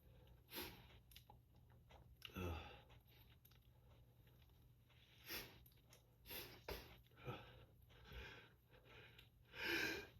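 A person's soft sniffs and short breaths in the lull between sneezes of a sneezing fit. About half a dozen brief breaths are spread out with near silence between them. The longest and loudest breath comes near the end.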